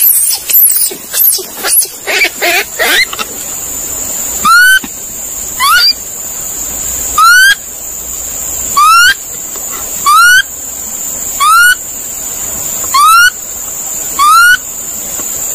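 Monkey calls: about three seconds of high, wavering squeals, then a short rising whistle-like call repeated eight times, about every second and a half.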